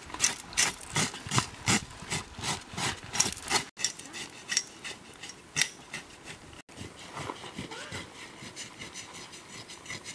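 A knife blade scraping the hair off a wild boar's hide in quick repeated strokes, about three a second, growing fainter after a few seconds.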